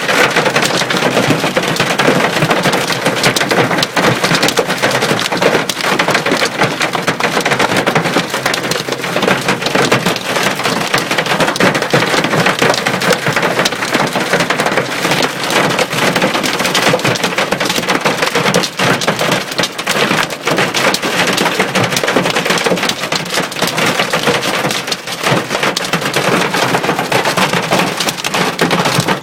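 Hail drumming hard and without let-up on a car's roof and body, a dense clatter of countless small impacts heard from inside the car.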